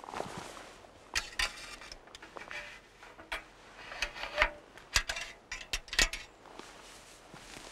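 Handling of a metal box-type marten kill trap as a dead pine marten is pulled out of it: a series of sharp metallic clicks and knocks with rustling, bunched about a second in and again between about four and six seconds.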